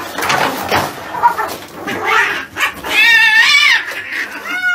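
Cats squabbling, with a long wavering yowl about three seconds in and a second yowl near the end.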